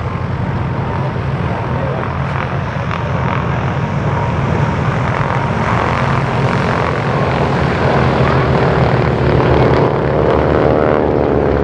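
Spartan Executives' Pratt & Whitney Wasp Junior radial engines droning in a propeller flypast, growing louder, with a swirling, phasing sound near the end as the aircraft pass.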